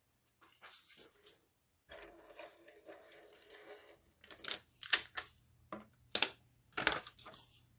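Paper and packaging being handled: soft rustling with several sharp crinkles and crackles in the second half.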